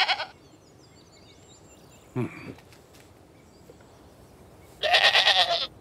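Animated goat bleating: a short wavering bleat at the very start and a louder one near the end, each under a second. A short low grunt comes about two seconds in. The goat is sick and very weak.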